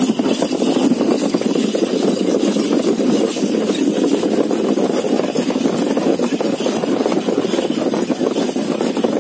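Steady rumbling and rattling noise of riding in a moving camel cart on a dirt road.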